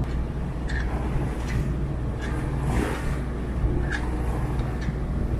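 A sailing yacht's engine runs steadily under way as a low, even drone, with the wash of the hull through the waves over it.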